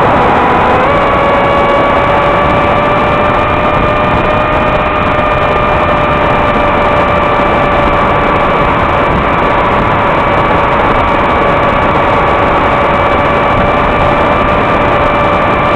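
Ritewing Hardcore 44 flying wing's electric motor and propeller in flight, heard through the onboard FPV camera's recorder: a steady whine over a loud rushing hiss. The whine steps up in pitch about a second in and holds.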